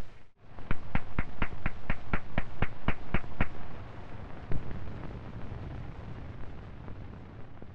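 A run of about a dozen sharp, evenly spaced clicks, roughly four a second, then the steady hiss of an old 16mm film soundtrack with one more click.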